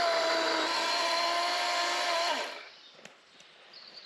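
Chainsaw running at high revs cutting into a fig tree trunk, its pitch wavering slightly, then the throttle is released about two and a half seconds in and the sound drops away.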